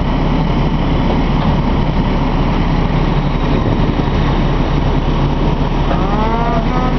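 A fire engine's motor running steadily at the scene, a constant low drone. About six seconds in, a brief series of short rising high-pitched sounds rides over it.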